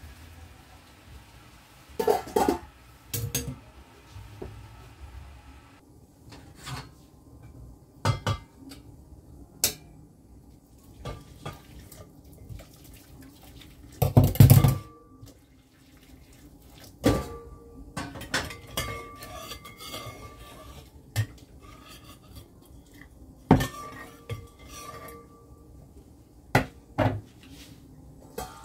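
Metal cookware clattering on a gas stove: a spoon scraping and knocking in a frying pan, with pot lids and a kettle clanking, in scattered knocks and scrapes. The loudest burst comes about halfway through, as water from a stovetop kettle is poured into a hot pot.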